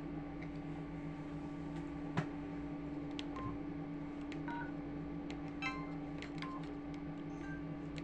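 Samsung SGH-E250 mobile phone giving short electronic key beeps at different pitches, about five of them spread through the second half, with small clicks of its keys being pressed and one sharper click about two seconds in. A steady low electrical hum runs underneath.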